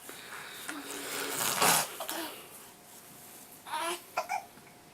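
Six-month-old baby's noises: a loud, breathy, cough-like burst about a second and a half in, followed by short high-pitched baby vocalisations near the end.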